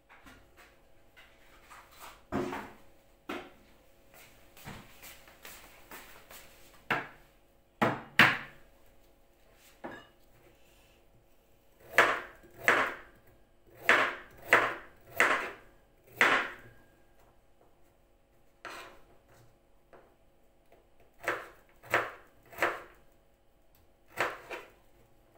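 Kitchen knife cutting a carrot on a plastic cutting board: sharp knocks of the blade hitting the board, coming singly and in short runs of about one to two a second, with pauses between.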